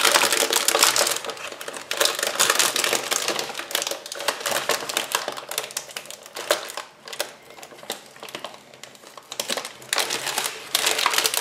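Crinkly clear plastic packaging being pulled off and handled by hand: a dense crackling rustle, loudest at the start and again near the end, quieter in between.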